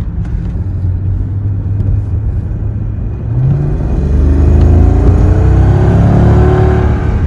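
Mercedes E55 AMG's 5.4-litre V8 running steadily, then accelerating hard from about three seconds in, getting louder with its pitch climbing.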